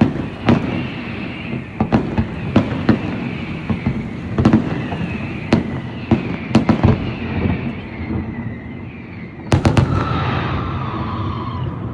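Fireworks exploding: sharp bangs at irregular intervals over a continuous low rumble, with a quick cluster of the loudest bangs about ten seconds in.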